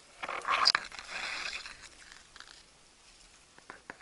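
Rustling and scraping of bankside grass close to the microphone: a burst in the first second and a half, then a few faint clicks.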